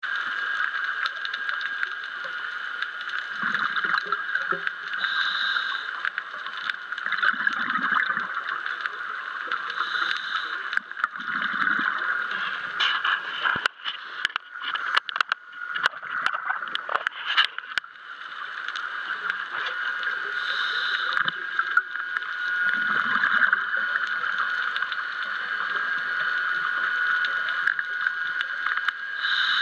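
Underwater sound of a scuba diver breathing through a regulator: every few seconds a hiss of inhalation, then a low gurgle of exhaled bubbles, over a steady high hum. A run of sharp clicks comes about halfway through.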